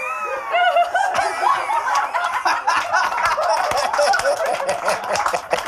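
A woman laughing hard, with other people laughing along and some hand claps mixed in.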